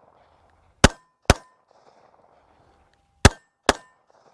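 Walther PPQ M2 Q4 TAC 9mm pistol fired in two quick double taps, about half a second between the shots of each pair and two and a half seconds between pairs, with a brief ring after the shots.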